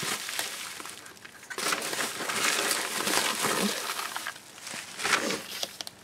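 Plastic bubble-wrap packaging rustling and crinkling as hands rummage in it, in uneven bursts that are busiest through the middle few seconds.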